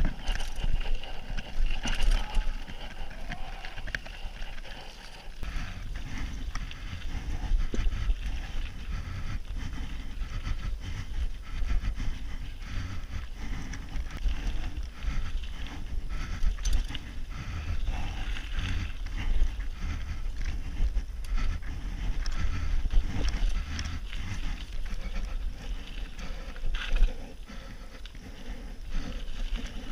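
Mountain bike ridden over a rough dirt forest trail: tyre noise and frequent knocks and rattles from the bike over bumps, with wind rumbling on the bike-mounted camera's microphone.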